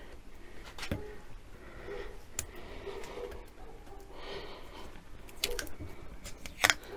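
Soft breathing close to the microphone, with a few light clicks and taps of hands handling parts.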